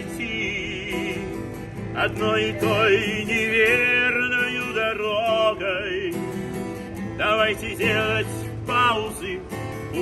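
A man singing in a tranquil voice to his own strummed acoustic guitar.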